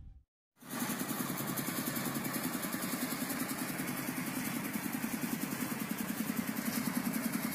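An engine idling steadily with an even, rapid pulse, starting about half a second in.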